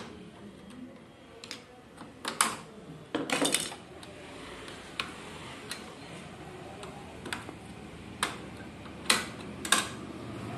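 Irregular sharp plastic clicks and knocks as the parts of a Canon G-series ink tank printer are handled and fitted back together by hand, about ten in all, with a quick rattle about three seconds in and two of the loudest clicks near the end.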